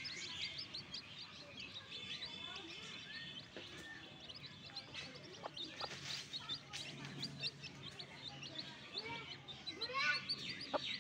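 Newly hatched chicks peeping continuously, many short high cheeps overlapping, busiest near the end. A few lower, softer calls from the mother hen come in between.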